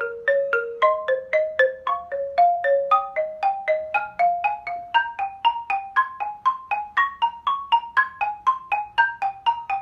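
Xylophone played with two mallets: an even run of struck notes, about five a second, climbing gradually in pitch through a practice sequence exercise.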